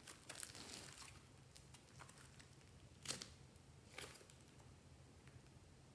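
Pink fluffy slime being stretched and squeezed by hand, giving faint sticky crackles and squelches, with two louder squishes about three and four seconds in.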